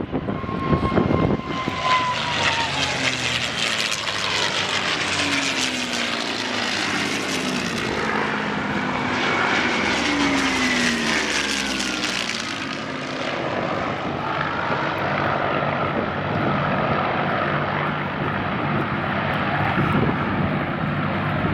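Second World War propeller fighters, Spitfires and Me 109s, flying past in a display dogfight: a continuous piston engine sound whose pitch drops as each aircraft goes by, most clearly near the start and again about halfway through.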